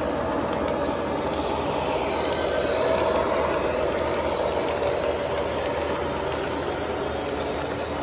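O gauge model Amtrak Genesis diesel locomotive and stainless passenger cars running on three-rail track: a steady motor whir with wheels rumbling and ticking over the rails, a little louder about three seconds in as the locomotive passes close by.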